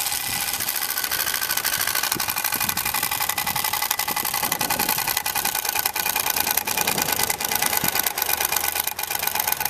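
Turbospoke bicycle exhaust running as the bike is pedalled: the plastic motor card flicks rapidly against the turning spokes and the exhaust pipe amplifies it into a steady, fast, engine-like rattle.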